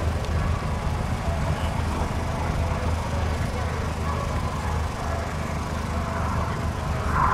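Steady low rumble of open-air background noise; right at the end a jet aircraft's sound begins to swell as it approaches.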